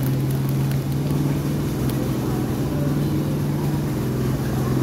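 A motor running with a steady low hum that does not change.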